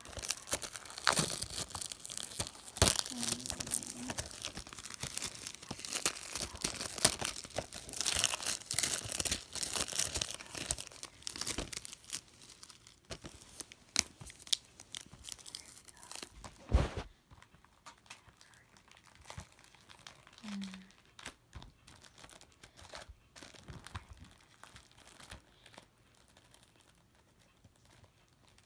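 Paper and plastic packaging being handled, crinkling and tearing, dense for about the first twelve seconds and then sparser. A single knock about seventeen seconds in is the loudest sound.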